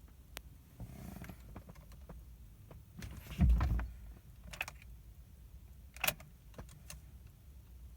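A 2008 car that won't crank: a few sharp clicks and one dull low thump as the ignition is tried, with no starter motor spinning and no engine running.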